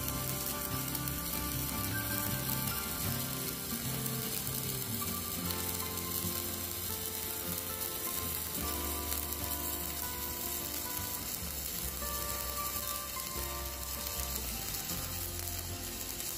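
Stick (MMA) welding arc crackling and sizzling steadily: a Poney MMA 200E mini inverter welder burning a stainless-steel electrode at a turned-down current.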